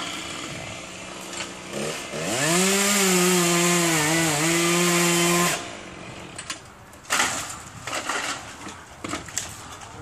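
Chainsaw revving up to full throttle about two seconds in and cutting for about three seconds, its pitch dipping briefly under load, then the throttle is released suddenly. A few sharp knocks follow.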